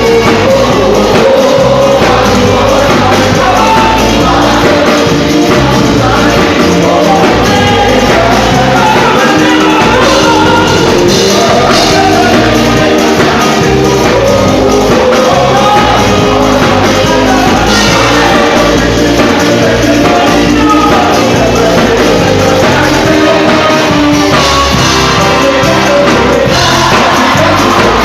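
Live gospel praise and worship music: a band playing loudly with singing over it, in a large hall.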